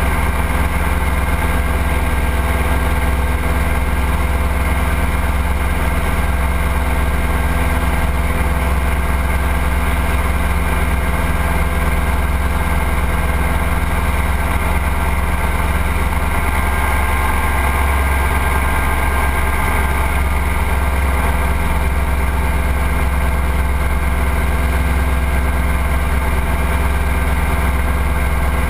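Ultralight trike's engine running steadily in flight, with heavy wind rumble on the airframe-mounted camera's microphone.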